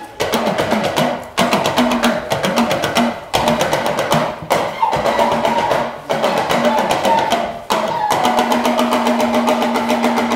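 Fast percussive music driven by drums, struck in quick even strokes. The drumming comes in phrases a second or two long, broken by short gaps, with a held low note over the last couple of seconds.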